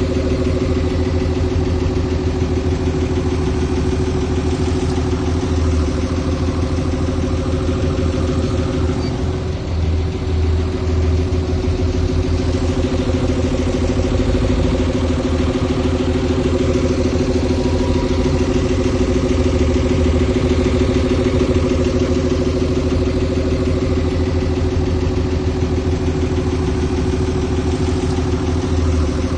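Diesel engine of heavy earthmoving machinery running steadily at a constant speed, with a deep rumble under a steady mid-pitched drone. The sound dips briefly about ten seconds in.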